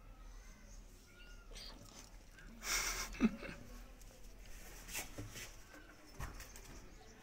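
A dog making faint whines during play, with a short huff a little under three seconds in followed by a brief low grunt.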